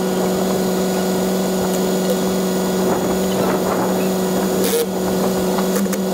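HiBlow linear diaphragm air pump running with a steady, even hum, pushing air down a hose into the aerobic septic tank to blow out a clogged pipe. A brief sharp noise cuts in about five seconds in.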